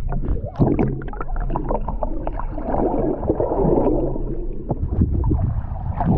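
Muffled rumbling and gurgling of lake water heard through a GoPro Hero 8's microphone held underwater, with small clicks and bubbling. Near the end the camera comes up through the surface with a splash.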